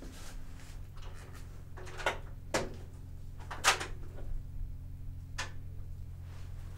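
Four short knocks or clunks, spread over a few seconds, the loudest a little past the middle, over a steady low hum.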